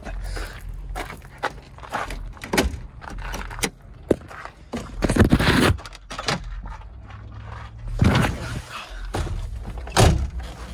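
Footsteps, rustling and a string of knocks and thumps as a person walks from the engine bay to the driver's seat of a Range Rover and climbs in. The loudest noises are a rustling burst about halfway through and heavy thuds near the end, one of them a car door.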